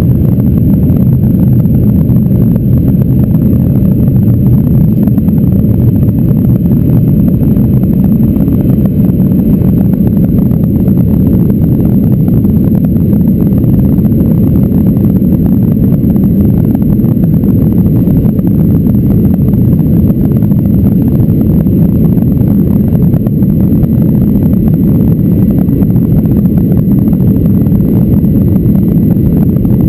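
Steady, loud cabin noise of a Boeing 737-800 climbing after takeoff: its CFM56-7B turbofan engines at climb power and the rush of air along the fuselage, heard from a window seat over the wing.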